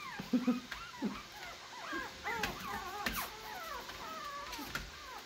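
Chihuahuas whimpering: many short, high whines that rise and fall, with a few light clicks between them.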